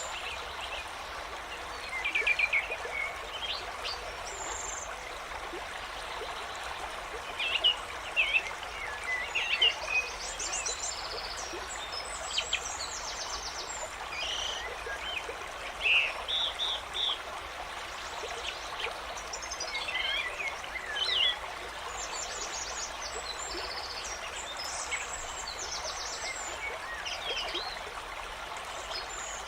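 A nature soundscape: a stream running steadily, with birds chirping and calling on and off over it.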